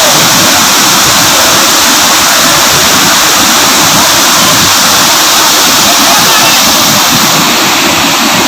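Water pouring over an overflowing check dam: a loud, steady rush.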